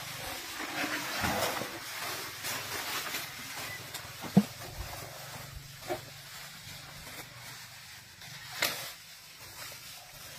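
Asian elephant feeding on grass and leafy branches: rustling foliage, with several sharp snaps of stems, the loudest about four seconds in and another near the end.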